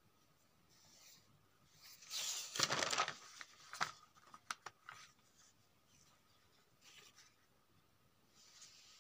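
Sheets of handwritten paper notes being turned: a loud paper rustle about two seconds in, followed by a few sharp crinkles and taps, then faint paper rustles near the end.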